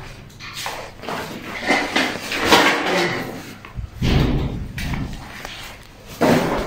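Knocks and thuds from doors and belongings being handled, with a heavier thud about four seconds in and another near the end.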